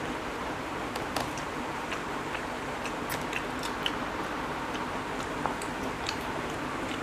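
Eating sounds: chewing and small, irregular mouth and finger clicks as two people eat jackfruit pods, bread and fried egg by hand, over a steady background hiss.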